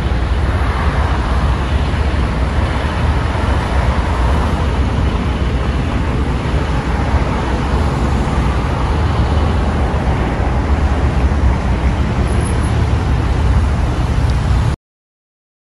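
Steady outdoor background noise with a heavy low rumble and no distinct events, cutting off abruptly near the end.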